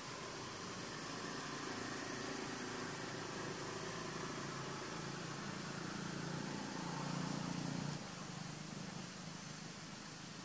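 Low steady engine hum, growing louder and then dropping off sharply about eight seconds in.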